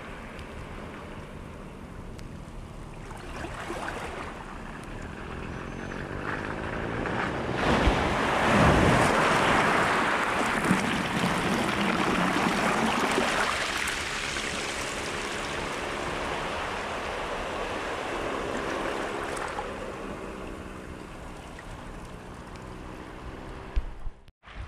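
Sea waves washing in on the shore. The wash swells to its loudest from about eight to thirteen seconds in, then eases back.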